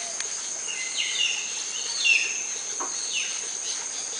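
A bird in an aviary gives three short, sliding calls about a second apart, over a steady, high-pitched insect drone.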